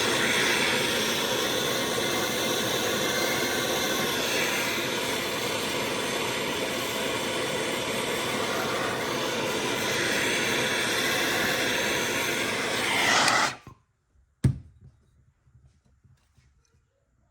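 Electric heat gun running with a steady blowing rush, heating the cylinder around a seized head stud to free it, then switched off abruptly; a single sharp knock follows about a second later.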